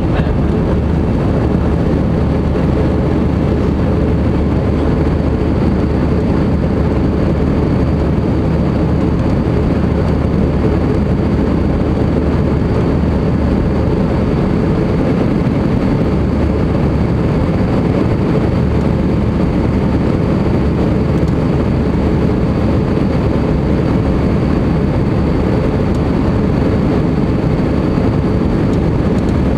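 Steady, deep cabin noise of an Airbus A320 in its climb after takeoff: the twin jet engines at climb power and rushing airflow, heard from inside the cabin over the wing.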